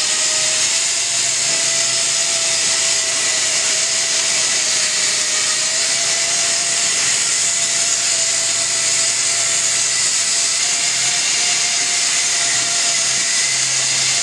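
Fiberglass chopper gun spraying chopped glass and resin into a boat hull mold: a steady, loud hiss with a steady whine running under it.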